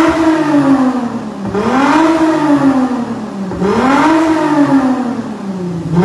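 Toyota Mark X 2.5-litre V6 revving through an aftermarket A Performance valve-controlled exhaust. It is blipped three times, the pitch rising quickly and sinking back more slowly about every two seconds.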